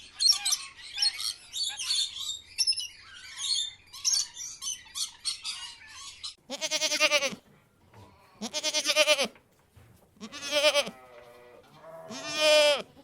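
Small birds chirping rapidly for the first half, then four long quavering bleats from a farm animal, each about a second long.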